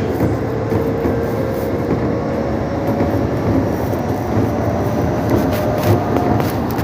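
Keisei 3600 series electric train running: a steady rumble of wheels on rail with a thin traction-motor whine that slowly falls, then a higher whine that rises near the end, and a few light clicks.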